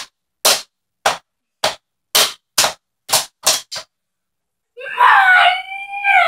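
Drumsticks tapping the rubber pads of a toy drum kit, about eight dry hits with no ring over the first four seconds. About five seconds in, a child's voice comes in loud, holding one long note that wavers in pitch.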